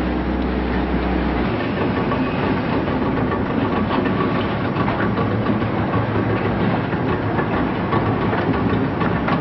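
Boat engines running steadily over a rush of water and wind, close alongside a ship; a deep hum drops away about a second and a half in.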